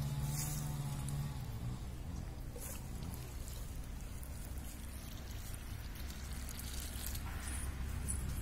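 Water poured from a small steel bowl onto dry soil around freshly planted chilli seedlings, in a few short splashes, over a steady low hum.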